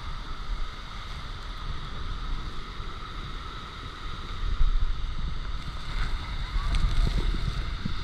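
Fast-flowing river and the El Meco waterfall rushing steadily, with wind rumbling on the microphone. It gets louder about halfway through.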